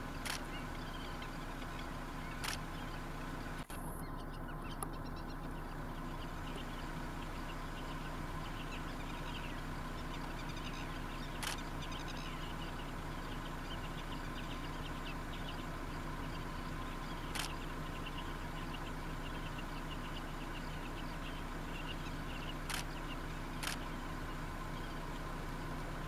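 Steady low hum and hiss with a few faint, isolated clicks.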